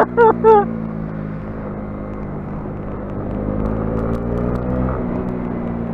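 Honda CB125R's single-cylinder 125 cc engine pulling along, its pitch climbing over a couple of seconds and then dropping suddenly about five seconds in, as the throttle is rolled off or a gear is changed. Steady wind and road noise runs underneath.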